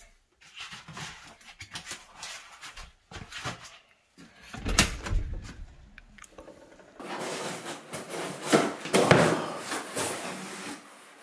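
A front door's digital lock and lever handle clicking and knocking, then a heavy thump about five seconds in. After that, a large cardboard box scrapes and rustles as it is slid and handled on a rug.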